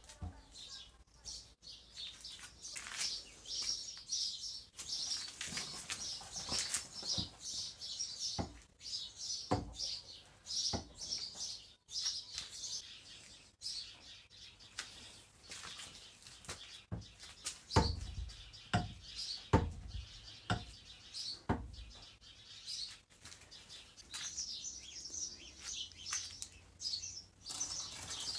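Small birds chirping and twittering throughout, with scattered sharp clicks and knocks of metal machine parts being handled; a cluster of louder knocks comes about two-thirds of the way through.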